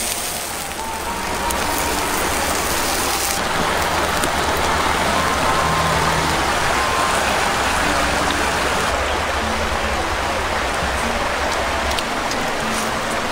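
Meat sizzling on a hot stone slab: a steady, dense crackling hiss. Soft background music plays underneath.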